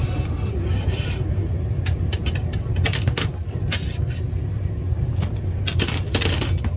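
Metal skewers scraping and clinking against the tandoor's mouth as a baked naan is pried off the oven wall and lifted out, over a steady low rumble. The clinks come in two clusters, one a couple of seconds in and one near the end.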